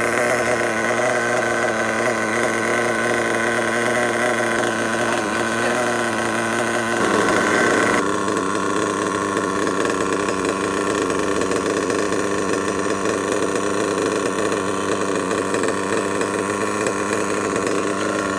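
Dynamite .28 nitro RC engine running steadily at idle during break-in and tuning, its note shifting about seven seconds in.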